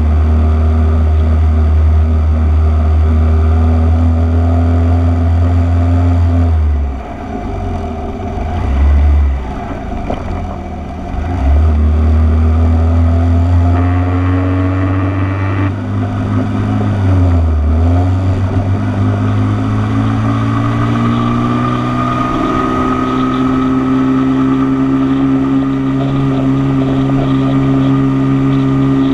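Motorcycle engine running under the rider at cruising revs. The engine note drops away about seven seconds in and picks up again some four seconds later, dips briefly in a short gear change near the middle, then rises slowly in pitch as the bike accelerates.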